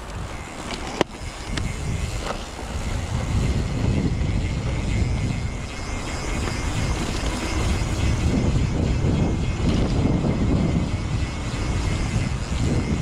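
Wind rumbling on an action camera's microphone and tyre noise as a mountain bike rolls fast down a dirt singletrack, growing louder about four seconds in. A sharp knock from the bike about a second in.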